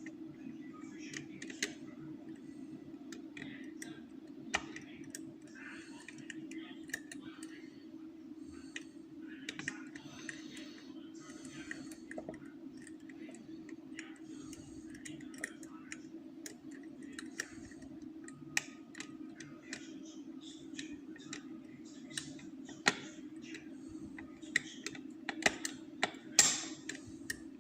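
Lever-lock picking tools clicking and scraping inside an ERA five-lever curtained lock. The small metallic ticks come irregularly, with a cluster of louder clicks near the end, over a steady low hum.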